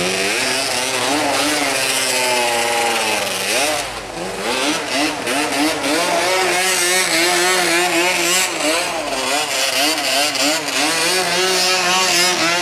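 Yamaha Banshee ATV's twin-cylinder two-stroke engine being revved. The pitch climbs and falls once in a longer sweep, then from about a third of the way in it rises and drops in quick repeated throttle blips.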